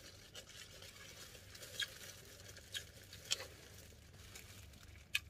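Faint clicks and scrapes of a utensil picking at food in a container during a meal, with soft chewing; a sharper click near the end.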